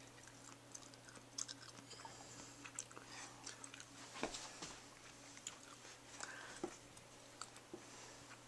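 Faint, scattered small clicks and rustles of handling, over a low steady hum.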